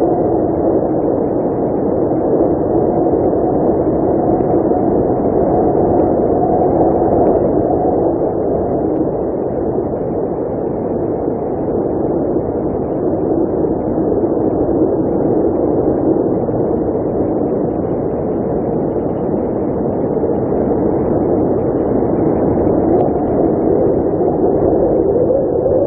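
Blizzard wind blowing steadily: a deep, dense rush that swells and eases slightly, with no gusts breaking through.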